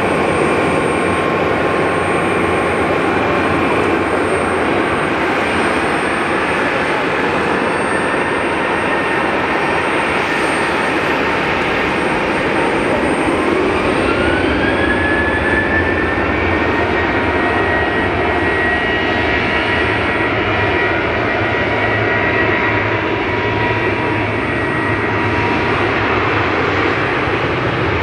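Boeing 737-800 CFM56 turbofan engines running steadily, then spooling up about halfway through: a rising whine climbs and levels off into a steady high tone as the aircraft begins its takeoff roll.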